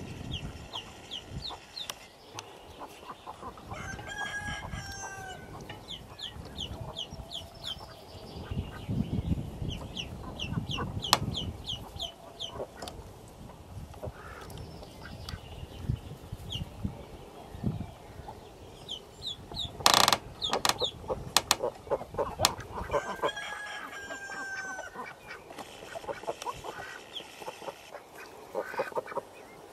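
Indian Runner ducklings peeping in quick runs of short high chirps, with rustling in the nest straw. Twice, a longer, lower held call from an adult bird is heard, and a sharp knock stands out about two-thirds of the way through.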